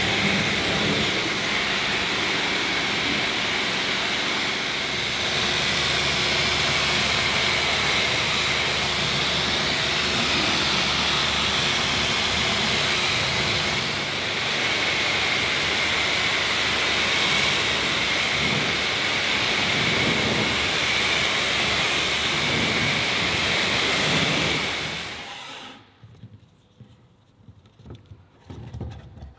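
Pressure washer jet spraying water onto a car's wheel and bodywork, rinsing off snow foam with a steady loud hiss. It cuts off about 25 seconds in, leaving a few faint small knocks.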